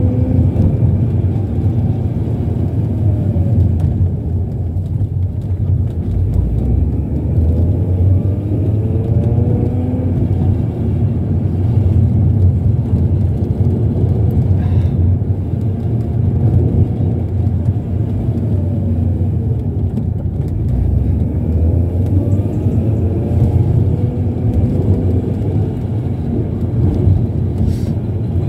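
Mazda MX-6 heard from inside the cabin while driving gently: a steady low road and engine rumble, with the engine's note rising and falling several times as it changes speed.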